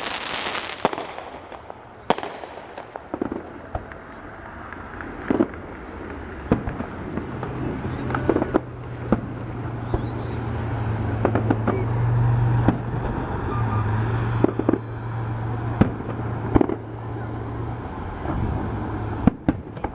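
Fireworks going off: many sharp bangs at irregular intervals. A steady low hum joins in about a third of the way through and fades out near the end.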